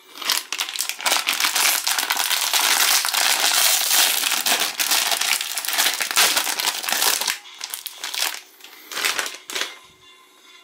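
Metallised plastic snack wrapper crinkling as it is handled and pulled open by hand. The crinkling runs for about seven seconds, then comes in two shorter bursts as the small plastic bag inside is handled.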